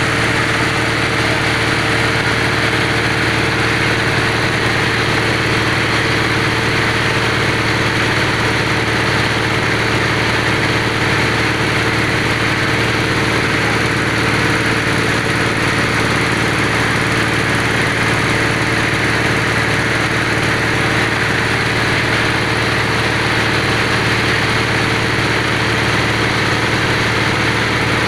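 Engine of a bore-well drilling machine running steadily at a constant speed.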